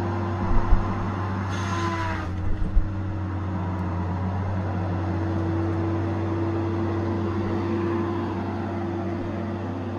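Tigercat 870C feller buncher running steadily under work, its engine and hydraulics holding an even drone. A short burst of hiss comes about a second and a half in, and a few dull low thumps come near the start and again shortly after the hiss.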